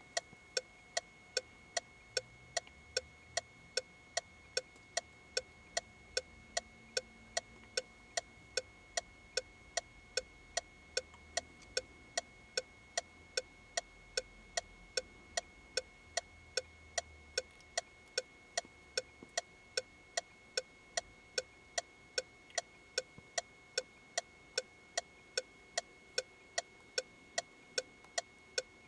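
Car turn-signal indicator ticking in a steady, even rhythm, two to three sharp clicks a second, over a faint steady high tone.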